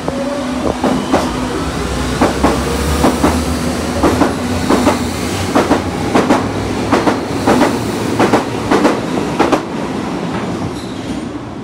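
Berlin U-Bahn U8 train pulling out of the station. A steady motor whine fades over the first few seconds while the wheels clack over the rail joints, often in pairs, as the cars pass. The noise dies away near the end as the last car leaves.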